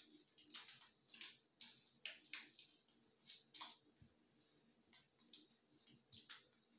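Faint crinkling of a small plastic instant-coffee sachet being worked open by a child's hands: short, irregular rustles, a few a second.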